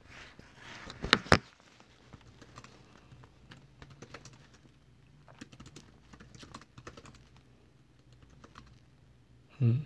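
Typing on a laptop keyboard: irregular light key clicks, with two louder clicks about a second in. A short low hum-like vocal sound comes near the end.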